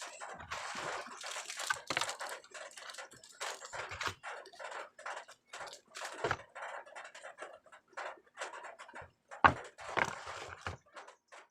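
Handling noise: rustling, scraping and tapping of a router and its packaging being handled, with a sharper knock near the end.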